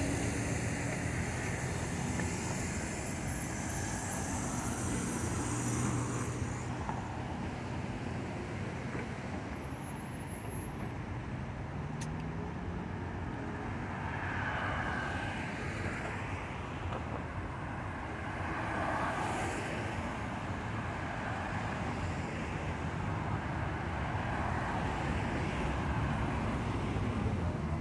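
Street traffic: vehicle engines running with a steady low hum, and a high hiss that stops about six seconds in.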